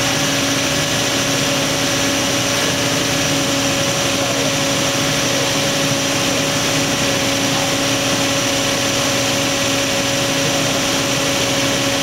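Toyota 2UZ-FE 4.7-litre V8 idling steadily, its camshaft sprocket timing just corrected after a botched timing belt job.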